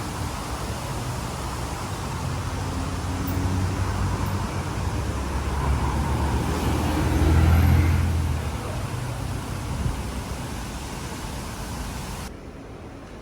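Road traffic: a motor vehicle passes close, its engine rumble rising to a peak about halfway through and then fading. Near the end the sound drops suddenly to a quieter steady hum.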